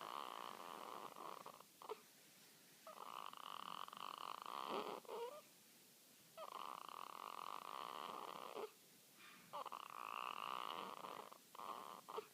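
Newborn baby snoring in her sleep: about four long, noisy snoring breaths of roughly two seconds each, in a regular rhythm with short pauses between.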